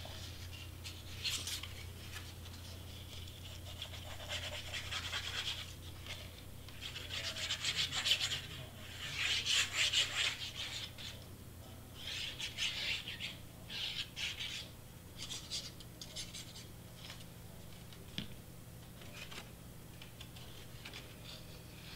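Quiet rubbing and scraping of cardstock, with paper pieces being handled, glued and pressed flat by hand. It comes in short rasping spells, most of them in the middle.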